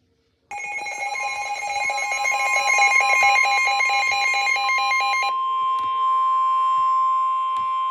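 Emergency alert broadcast signal: about five seconds of rapidly switching electronic data tones starting suddenly, with a steady single alert tone near 1 kHz coming in about a second in and holding on alone after the data tones stop. It heralds a severe weather bulletin.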